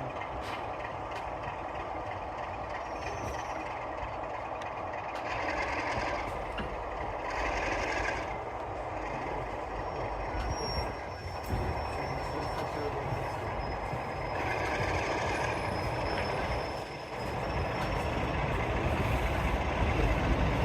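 Train hauled by Class 45 diesel 45108 in motion: a steady rumble and clatter of wheels on track, with a thin high squeal from about ten seconds in that stops after about sixteen seconds.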